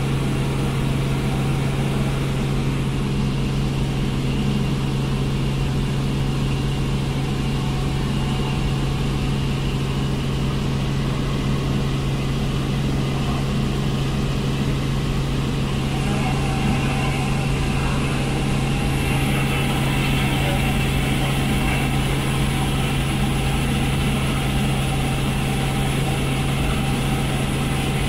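Helicopter engine and rotor drone heard from inside the cabin in flight: a loud, steady hum with a strong low tone. It turns a little brighter and hissier about two-thirds of the way through.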